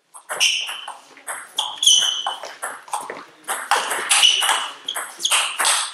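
Table tennis rally: the ball clicks sharply off rackets and table in quick, uneven succession, ringing in a large hall, with a few short high squeaks of shoes on the hall floor.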